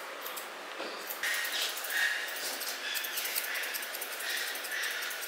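Grooming shears snipping through a poodle's coat in many quick repeated cuts, with short high squeaks among them.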